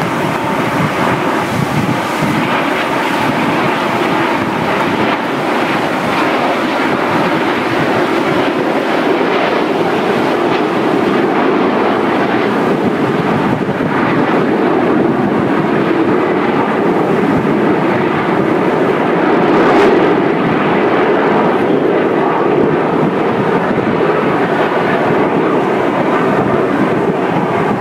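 Formation of Aermacchi MB-339 jet trainers flying past: continuous jet engine noise, at its loudest about twenty seconds in.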